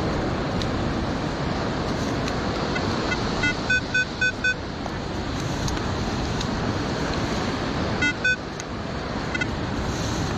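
Metal detector giving short, high, steady-pitched beeps: a quick run of about five a few seconds in and two more near the end, over a steady rushing background of wind and surf.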